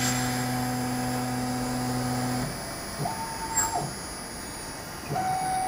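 Motor of a woodworking CNC boring machine running as it bores a 17 mm-deep hole into an 18 mm high-gloss panel. A steady hum runs for the first two and a half seconds, a short higher-pitched tone follows about three seconds in, and a steady whine starts again near the end.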